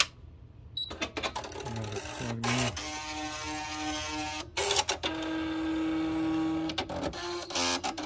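Nakajima WPT-160 electronic typewriter running its power-on self-checks: its carriage motor whines steadily while the mechanism clicks, with a couple of louder clunks as the print carriage moves and resets.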